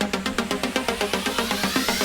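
Electronic music with a fast pulsing beat of about eight notes a second. A rising sweep builds up from about a second in.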